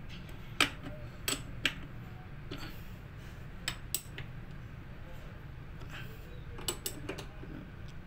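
Scattered metallic clicks and taps of a spanner working the bolt of a battery terminal clamp as it is tightened, over a low steady hum.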